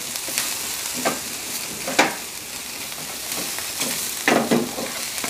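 Onions and mushrooms sizzling steadily on the hot steel plate of a Blackstone electric griddle turned up to 260 °C for quick browning, with a metal spatula scraping and turning them a few times.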